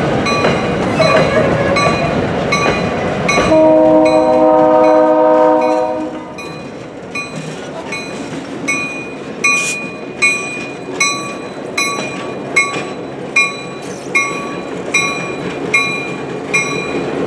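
Passenger train rolling past close by with wheel rumble and clatter. A train horn sounds one long chord blast about three and a half seconds in, lasting a couple of seconds. A bell dings steadily about every 0.8 s, plainer once the rumble fades after about six seconds.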